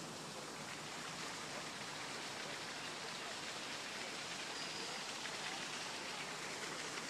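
Steady, even rush of running water, with no distinct splashes or drips.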